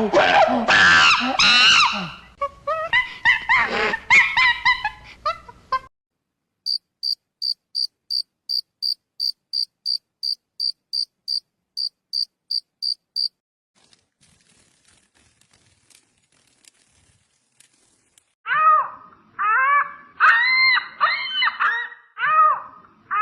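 A sequence of different animal calls. It opens with dense, pitched calls, then a steady run of short high chirps at about two and a half a second, lasting some seven seconds. After a few faint clicks, near the end, comes a series of whining calls that rise and fall in pitch.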